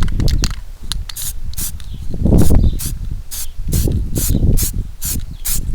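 Aerosol spray can of white primer puffing in short bursts, about two or three quick hisses a second from about a second in, laying a light mist coat, with wind buffeting the microphone underneath.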